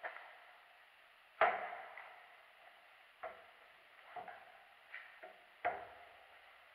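Objects being handled on an old metal-topped workbench: several irregular knocks and clanks, the loudest about a second and a half in, each ringing briefly in the large empty hall.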